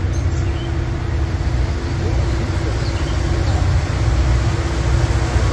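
Diesel freight locomotive engines running: a steady deep rumble with a steady hum above it, while birds chirp faintly.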